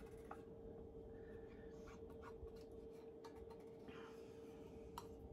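Faint, intermittent scraping of a spatula against the inside of a stainless steel measuring cup as Greek yogurt is scraped out, with a couple of small clicks. A steady faint hum runs underneath.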